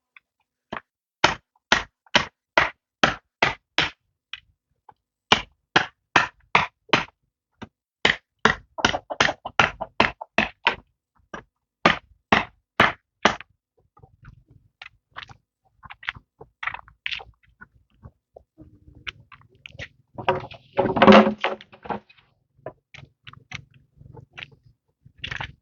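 Runs of sharp blows on bamboo, about two a second, in several bursts of strikes with short pauses, then scattered lighter knocks. Near the end comes one louder, longer clattering noise.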